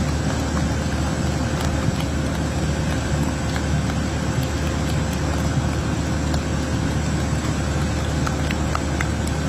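Steady low engine rumble with a constant faint whine, and scattered small clicks over it.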